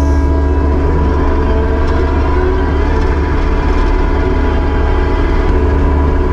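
Diesel engine of a Kubota SVL75-2 compact track loader (skid steer) running steadily under work.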